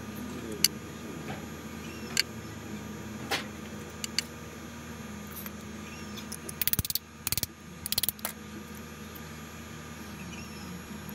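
Metal parts of a scooter's electric starter motor being handled as it is taken apart: a few separate sharp clicks, then three short bursts of quick rattling about two-thirds of the way through.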